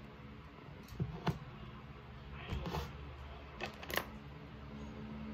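A handful of small, sharp clicks and taps from small objects being handled close to the microphone, spread irregularly over a steady low hum.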